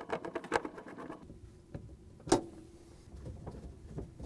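Small clicks and rattles from a plastic refrigerator shelf track and a Phillips screwdriver as the track is screwed to the freezer wall, with one loud sharp knock and a short ring about two seconds in.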